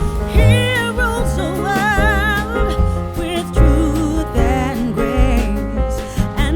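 Background music: a song with a singing voice whose held notes waver with vibrato, over bass and a steady beat.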